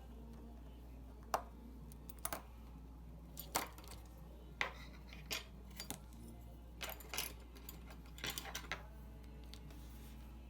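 Small metal watchmaker's tools clicking and tapping against a watch movement while the automatic winding weight is being removed: about a dozen sharp, irregular clicks, some in quick clusters.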